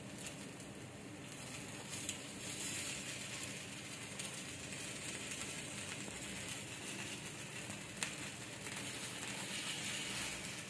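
Appe batter sizzling softly in the oiled cavities of an appe pan while the balls are turned over with a spoon, with a few light clicks of metal on the pan.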